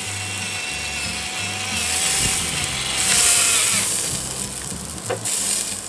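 Fruit and bacon sizzling on a charcoal table grill, the hiss swelling twice, about two seconds in and again from three to four seconds in. Background music plays along.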